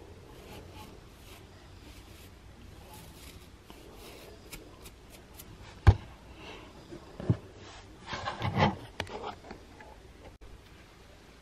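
Faint fingernail scratching on the scalp at first, then handling knocks from the camera: one sharp knock about six seconds in, a smaller one a second later, and a short run of rustling bumps near the end.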